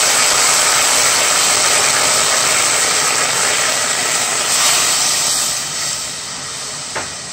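Water sizzling and hissing on the bottom of a heated aluminium pot: a steady hiss that slowly dies down over the last couple of seconds, with a light click near the end.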